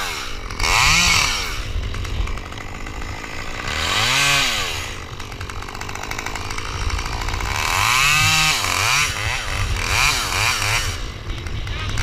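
Chainsaw engine revving up and dropping back again and again, its pitch swelling and falling every few seconds.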